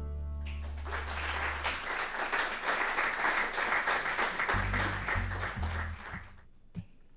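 Small audience applauding at the end of an acoustic bluegrass song, while the band's last low note fades out over the first two seconds. A few low plucked notes sound under the clapping, which dies away about a second before the end.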